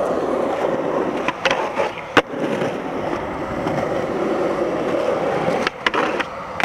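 Skateboard wheels rolling on concrete with a steady rumble. A sharp clack about two seconds in, with lighter clicks just before it, and a few more clacks of the board near the end.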